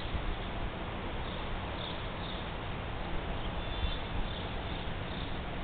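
Steady outdoor rumble and hiss with a low drone underneath, and faint high chirps now and then.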